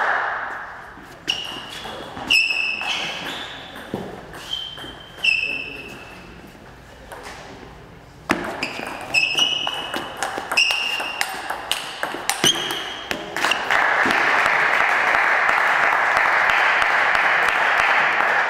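Table tennis ball pinging off rackets and the table, about two hits a second, in two runs of play, then a few seconds of steady crowd noise near the end.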